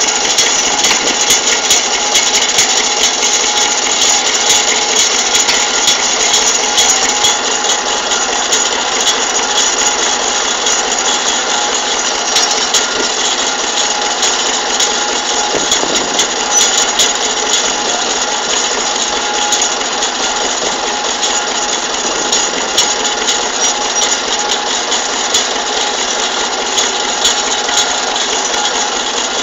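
Small tractor's engine running steadily and loud as its front loader scoops and lifts manure.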